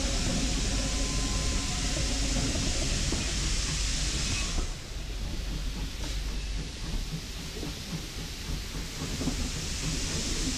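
Steam-hauled heritage passenger train running along the line: a constant low rumble and rattle of the carriage, with a hiss over it. The hiss drops away about four and a half seconds in and comes back near the end.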